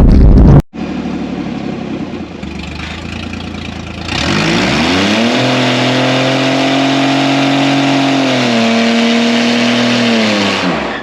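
Off-road truck engine revved from idle about four seconds in, held high for several seconds with a small dip, then let back down to idle near the end. A loud rush of noise cuts off abruptly under a second in.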